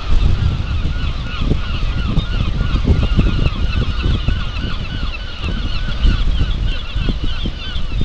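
A large flock of seagulls calling continuously, many short, overlapping calls at once, over a constant low rumble.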